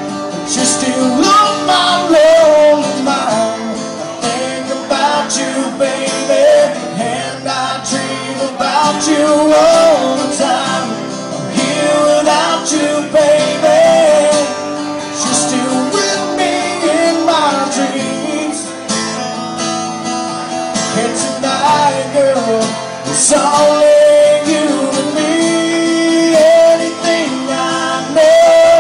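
Live country song played on guitar, with a melody line weaving over steady strummed chords.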